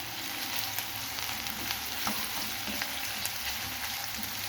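Food sizzling steadily in hot cooking oil in a pan, being sautéed, with scattered crackles and pops and a few soft knocks as it is stirred.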